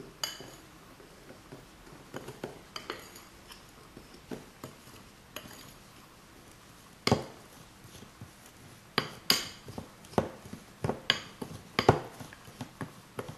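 Metal spoon clinking and scraping against a white bowl while stirring a crumbly flour-and-spice stuffing mixed with oil. The taps are irregular, sparse at first and coming thick and louder from about halfway through.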